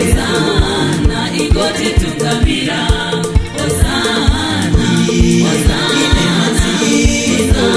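Gospel song: a group of voices singing together over a steady bass-drum beat and band.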